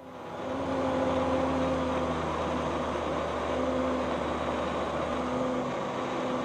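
Flight Design CTSW's Rotax 912 flat-four engine and propeller droning steadily in flight, heard inside the cockpit and fading in at the start. The low hum drops away about five seconds in.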